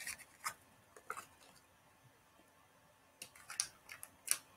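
Faint clicks and scrapes of a small plastic cosmetics container being worked open by hand: a few isolated clicks early on, then a quick run of them between about three and four and a half seconds.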